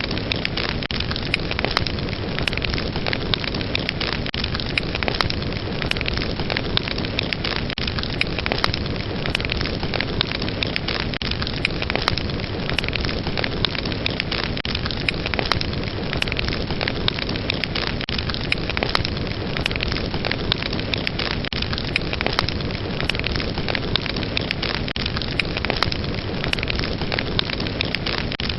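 Wood fire burning with a steady rush of flame and frequent sharp crackles and pops throughout.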